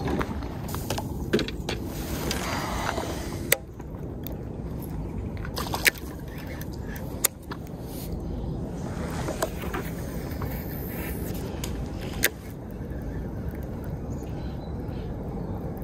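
Steady low outdoor rumble with four sharp clicks spread through it from handling a fishing rod and baitcasting reel.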